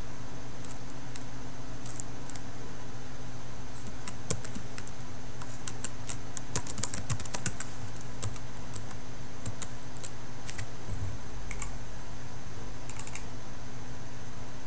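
Typing on a computer keyboard, with the keystrokes densest in the first half and a few separate clicks later on, over a steady low hum.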